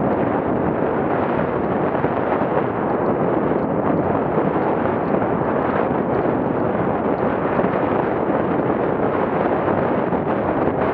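Steady wind buffeting on an action camera's microphone during a fast mountain-bike descent, mixed with the rush of tyres over loose shale trail.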